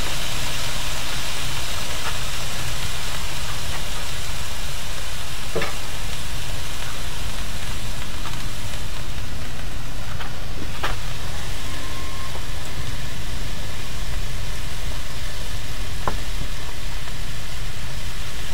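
Pieces of smoked monitor lizard frying in oil in a wok over a wood fire: a steady sizzle, with a few sharp knocks of the spatula against the wok as the meat is stirred.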